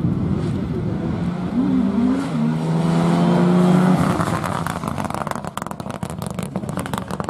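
Rally car accelerating hard past the camera, its engine note jumping with quick gear changes, then held high as it goes by. After that comes a fast, irregular crackling as the engine sound fades away.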